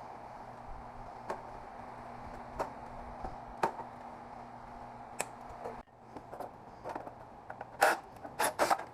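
Scattered sharp clicks over a steady background hum, then, after an abrupt break about six seconds in, louder clinks and clatter of metal scrap parts being handled.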